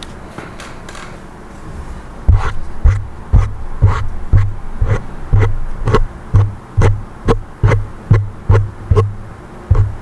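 A comb worked close to the microphone in ASMR style, faint at first. From about two seconds in come regular strokes, about two a second, each with a low thump.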